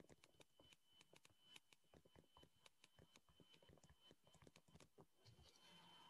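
Faint, irregular ticks and taps of a stylus writing on a tablet screen, stopping about five seconds in.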